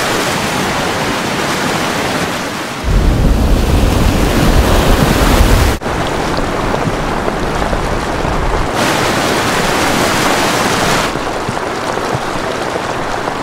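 Floodwater rushing, a steady noisy roar made of several spliced clips. A few seconds in, a heavy low rumble comes in for about three seconds and ends at a sudden cut; the water noise then changes character abruptly twice more.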